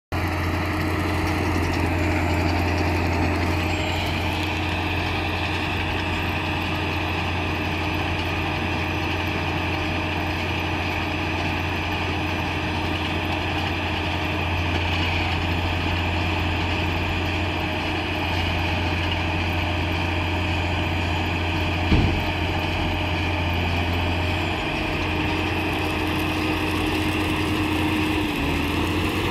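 John Deere 6830 Premium tractor's six-cylinder diesel running steadily while working a Krone Comprime round baler picking up and baling straw. A single sharp thump about two-thirds of the way through.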